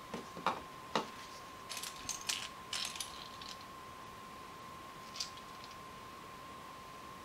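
Loose plastic Lego pieces clicking and clattering as fingers sort through a pile of them on a cutting mat: a few sharp clicks in the first second, a rattling run of clicks around two to three seconds in, and one more click about five seconds in. A faint steady tone sits underneath.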